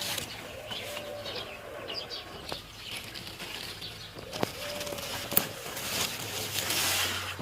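Birds calling: a short, low, arched call repeated every few seconds, with small high chirps between. A few sharp clicks and a rustling noise near the end.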